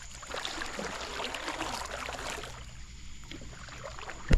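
Water splashing and sloshing around a small boat, busiest in the first couple of seconds, then a sharp knock just before the end.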